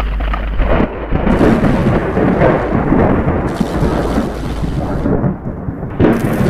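Loud, continuous rumbling noise with a rain-like hiss, like a thunderstorm.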